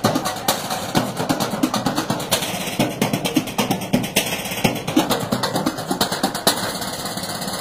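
A group of percussionists drumming with sticks on galvanised metal trash cans and lids, a fast, steady run of clanging strikes.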